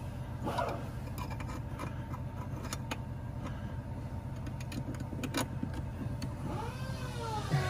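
Scattered light clicks and taps of a hand tool working a bolt on a car's under-dash fuse box, over a steady low hum. A man's wordless voice slides in near the end.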